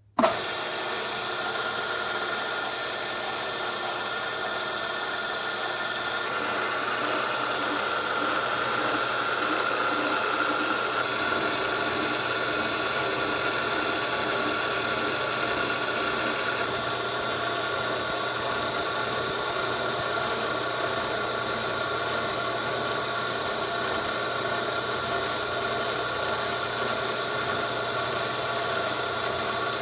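Milling machine spindle running steadily while a reamer cuts out a valve guide in a hit-and-miss engine's cylinder head: an even mechanical hum and hiss with a high whine, starting abruptly.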